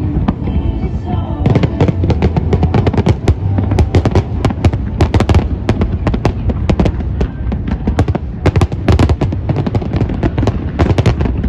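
Fireworks display going off in a rapid, continuous barrage of sharp crackling bangs, many a second, thickening about a second and a half in, with music and crowd voices underneath.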